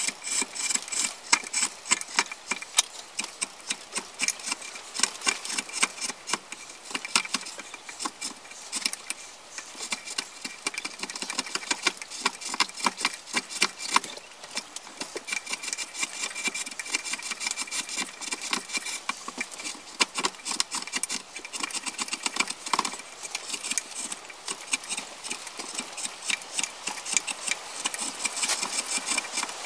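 Flat steel hand tool scraping and filing the outside of a wooden kuksa clamped in a vise: quick, short strokes, several a second, with brief pauses when the tool is repositioned.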